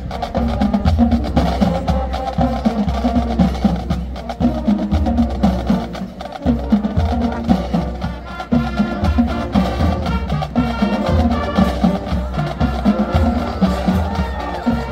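High school marching band playing: sustained horn chords over a steady, driving beat of bass drums and percussion.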